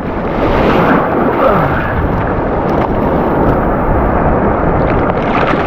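Surf waves breaking and washing right around the microphone: a steady, loud rush of water.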